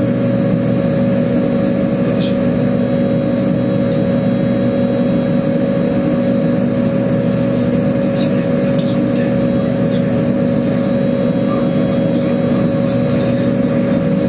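Steady drone of a Boeing 929 jetfoil under way: its gas turbines and waterjet pumps run evenly, with several steady hum tones over a rushing noise and a few faint ticks.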